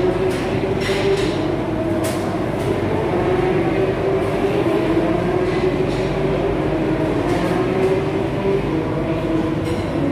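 Steady machine noise of commercial kitchen equipment and ventilation running: a continuous rushing hum with a few wavering tones that drift slightly in pitch.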